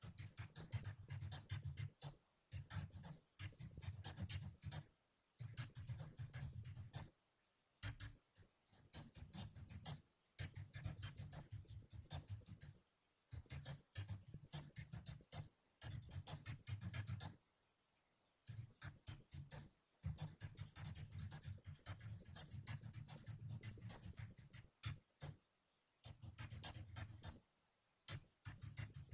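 Typing on a computer keyboard: runs of quick key clicks lasting a second or three, broken by short pauses.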